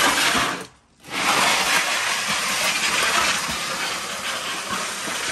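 A heavy, loaded plastic storage tote being dragged across a concrete floor. A short scrape, a brief pause, then a longer steady scrape from about a second in.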